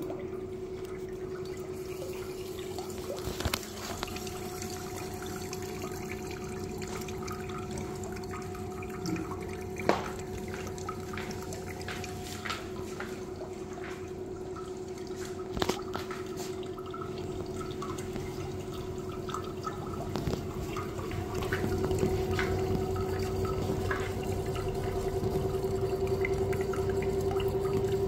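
Water dripping and trickling from a front-loading washing machine's open drain-filter outlet, which was clogged with carpet lint, over a steady hum that gets louder about three quarters of the way through. A few sharp knocks stand out.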